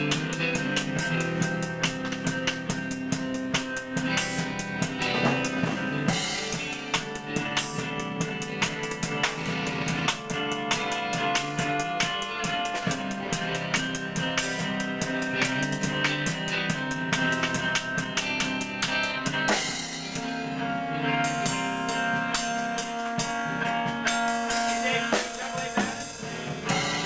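A rock band playing together on drum kit, electric bass and electric guitar, with steady kick and snare hits under sustained guitar notes. The cymbals and high end drop back about twenty seconds in while the guitar carries on.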